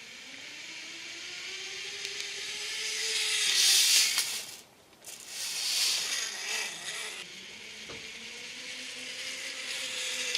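Cordless drill running in several spells, its pitch slowly rising and falling as it drives screws, louder in swells about four seconds in and again around six seconds.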